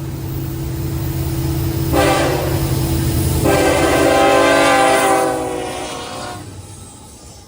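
A locomotive's Nathan K5LLA five-chime air horn sounds a short blast about two seconds in, then a longer blast that fades away near the end, over the low rumble of the passing train.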